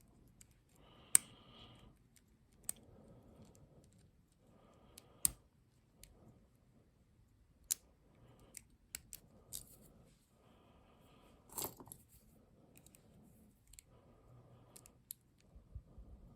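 Lock pick working the pin stack of a Lockwood 234 padlock: soft scraping with sharp, irregular metal clicks.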